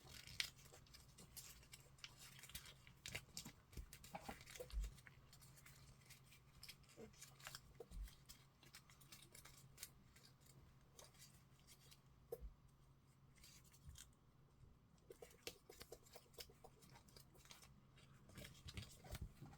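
Faint crackling and rustling of a sheet of origami paper being folded and creased by hand, in scattered short crinkles over a low steady hum.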